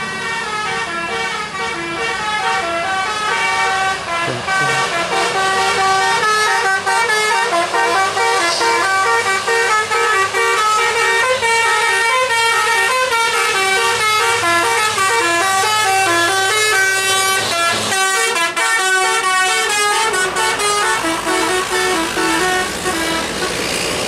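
Tour bus's musical 'telolet' air horn playing a tune of quickly stepping notes, the melody changing about three-quarters of the way through.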